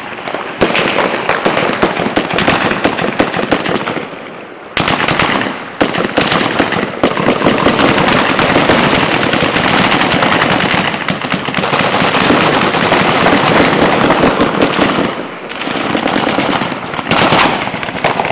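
Automatic weapons fire in long, rapid bursts of shots, pausing briefly about four seconds in and easing off for a moment near the end.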